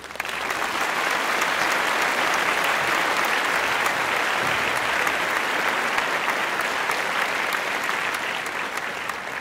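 Crowd applauding: dense, steady clapping that eases off slightly near the end.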